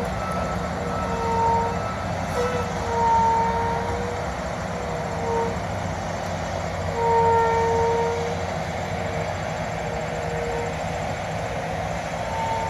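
Heavy diesel road-construction traffic running with a low rumble, led by a tandem-axle dump truck. Over it, a steady-pitched whine sounds in short, irregular pieces every second or two.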